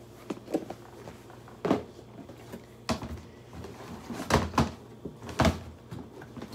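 Five or so separate knocks and thumps of football cleats being handled and set down while he rummages for the next pair.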